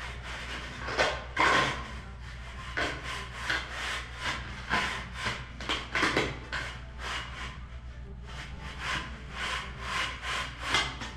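Wooden lath scraped back and forth over a sand-cement mortar bed in short, uneven strokes, about two a second, as the shower-floor mortar is screeded.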